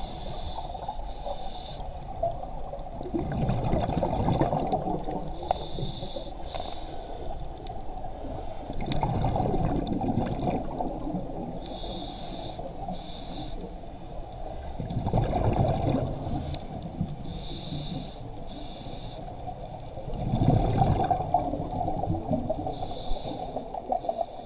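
Scuba regulator breathing underwater: a short hissing inhale followed a couple of seconds later by a rumbling burst of exhaled bubbles, repeating about every five to six seconds, four or five breaths in all.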